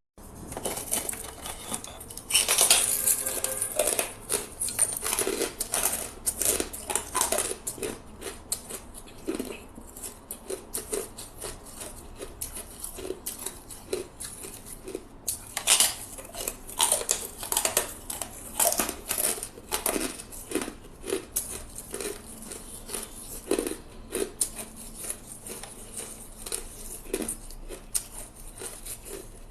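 Hard ice being bitten and chewed: a dense, irregular run of crunches and cracks. The loudest stretches come about two to three seconds in and again about sixteen seconds in.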